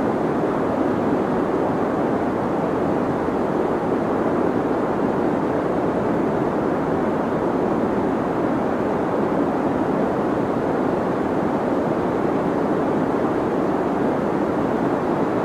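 Steady deep white noise: a constant, even rushing hiss weighted toward the low and middle tones, with no change in level.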